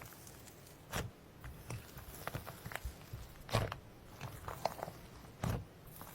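Slime being squished and pressed, with sticky squelches and small crackling pops. Three louder squelches come about a second in, past the middle and near the end.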